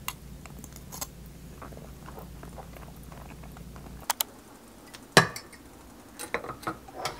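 Faint small clicks of a fork on a ceramic plate during eating, then a glass jar lowered upside down into a stainless steel saucepan of hot water to sterilise it. The jar knocks against the pot with one sharp clink about five seconds in, and a few lighter clinks follow near the end.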